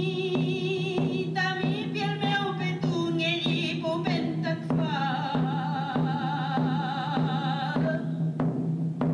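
Mapuche ceremonial song: a high, wavering voice holds long notes over a kultrun drum struck about twice a second, with a steady low drone beneath.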